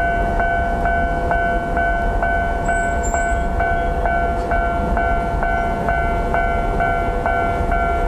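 Japanese level-crossing warning alarm ringing with the barriers down: an electronic bell tone repeating evenly about twice a second, signalling a train approaching. A low rumble runs underneath.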